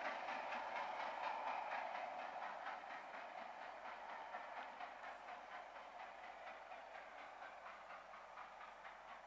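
Passenger coaches of a steam-hauled train rolling away on the main line, their wheels clattering over the rails in a steady rhythm. The sound fades steadily as the train recedes.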